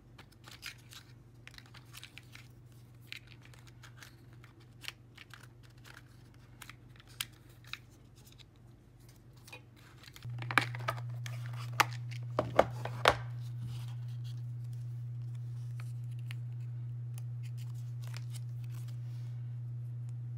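Fingers rummaging through paper stickers in a plastic compartment organizer: soft rustling and small clicks of paper against plastic, with a few sharper clicks about halfway through. A low steady hum underneath becomes much louder about halfway.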